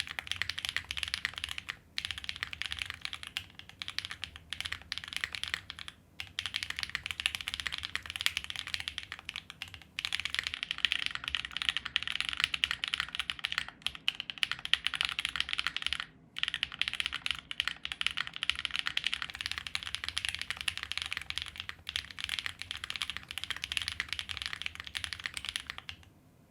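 Fast, continuous typing on a custom wilba.tech Thermal mechanical keyboard with lubed Drop Holy Panda tactile switches on an aluminium leaf-spring plate and GMK keycaps. The keystrokes run together in a dense clatter, broken by a few brief pauses, and stop just before the end.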